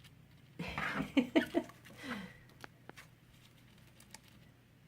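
A woman laughs briefly in a few short breathy pulses. A few faint sharp clicks follow, from cockatiels chewing on shoes.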